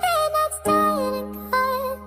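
Music: a sung melody over a held bass and chord accompaniment.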